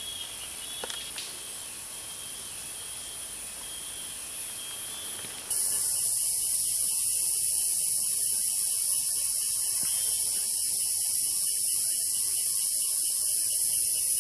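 Rainforest insects droning: a thin, steady high trill at first, then about five seconds in a much louder, steady high-pitched insect buzz sets in abruptly and holds.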